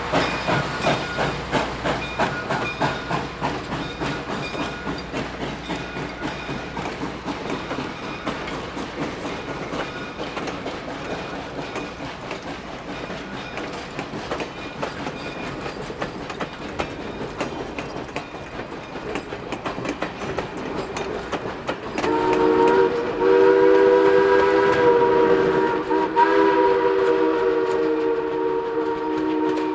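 Steam locomotive pulling a passenger train away, its exhaust beating quickly and evenly with wheels clicking over rail joints, fading as it recedes. About two-thirds of the way through, its chime steam whistle blows two long, loud blasts.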